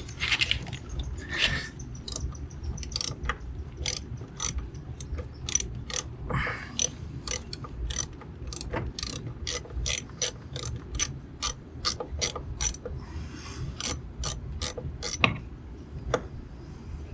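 Ratchet wrench clicking in runs of sharp clicks, a few per second, as a socket backs out the screws holding a GM wiper pulse motor controller.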